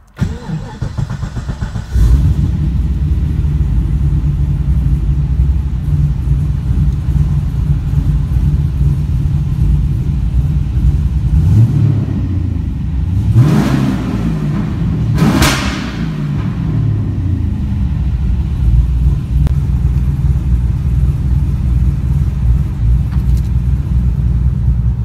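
LS2-based 403 stroker V8 with shorty headers and custom exhaust, heard from inside the cabin: it cranks on the starter, catches about two seconds in and settles into a steady idle. About halfway through it is revved twice in quick succession, each rev rising and falling back, then it returns to idle.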